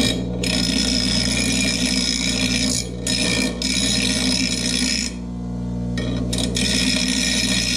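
Bench grinder running with a steady motor hum while a steel pipe is pressed against its wheel, grinding it down to bare metal. The harsh grinding hiss breaks off briefly about three seconds in and again about five seconds in as the pipe is lifted, then resumes.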